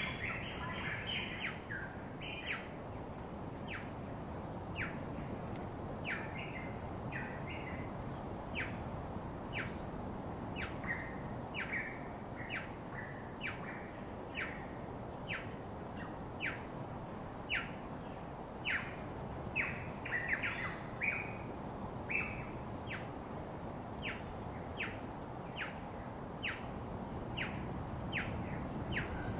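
Wild birds calling: a run of short, sharp chirps, a little over one a second, with scattered bursts of twittering, over a steady low background noise.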